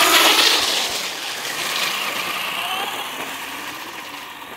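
Traxxas Stampede RC monster truck accelerating away over icy, slushy pavement. A rising motor whine and tyre hiss are loudest at the start, then fade steadily as the truck drives off.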